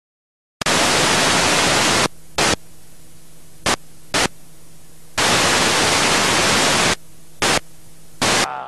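Television static: a loud hiss that switches on and off after about half a second of silence, in two long stretches of a second or two and five short bursts. Between them a quieter hiss and a low steady hum go on.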